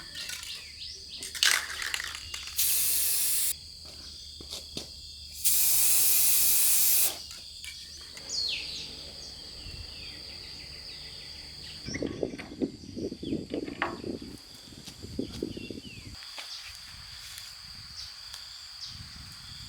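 Two short bursts of spraying hiss, the second a little longer. After them come a few scattered low knocks and rustles, with a steady high insect-like buzz underneath throughout.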